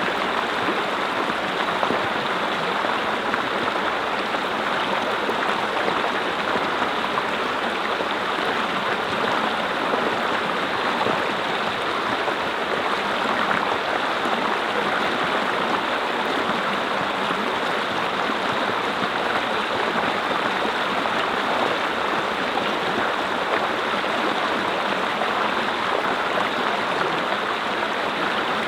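Mountain brook flowing over rocks: a steady, even rushing and babbling of water.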